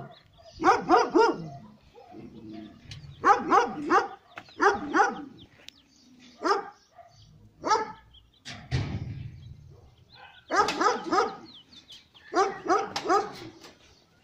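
Dog barking in quick runs of four or five barks, with pauses of a second or two between runs. A brief low rumble about nine seconds in.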